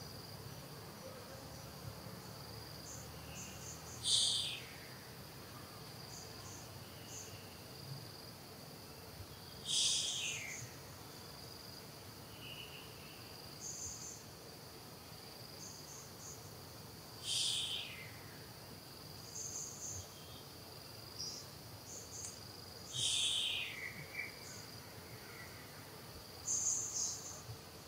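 Forest insects keep up a steady high-pitched drone with short chirps. Over it, a louder high call that falls in pitch sounds five times, several seconds apart.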